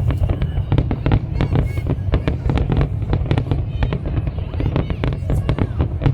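A fireworks display going off without pause: rapid, overlapping bangs and crackles over a deep rumble, with a few short whistles among them.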